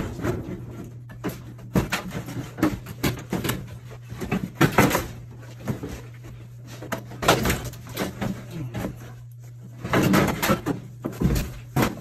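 Irregular knocks and short metallic rattles as an air-conditioner evaporator coil with copper tubing is handled and shifted, over a steady low hum.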